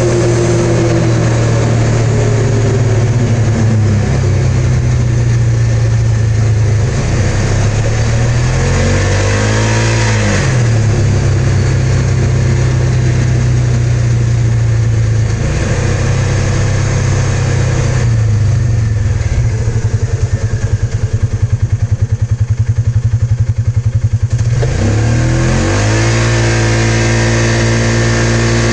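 Polaris RZR 570's single-cylinder engine running under way through its CVT with a Dalton clutch kit, heard from the seat. The engine note drops and climbs back about ten seconds in, pulses slowly at lower revs around twenty seconds in, then revs up hard near the end.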